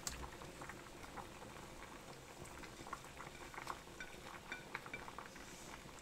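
Stir-fry sauce simmering in a cast iron skillet with vegetables in it: faint, scattered bubbling pops, with one sharper click right at the start.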